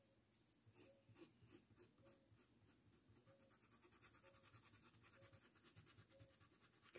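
Faint, quick, even scratching of a small paintbrush dabbing fabric paint onto cotton cloth.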